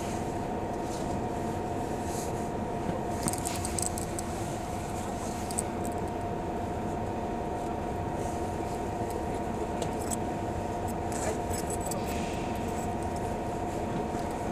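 Steady idling hum of a stationary highway bus's engine and air-conditioning, heard from inside the passenger cabin, with faint scattered clicks and rattles.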